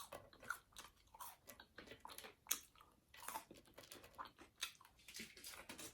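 Faint, close-up chewing: irregular small crunches and wet mouth clicks of someone eating fries.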